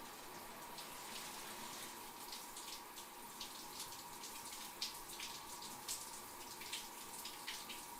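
Shower water running steadily in a small bathroom, with irregular splashes and patters as the spray is broken up, the sharpest a little before the halfway point and again about three quarters of the way through.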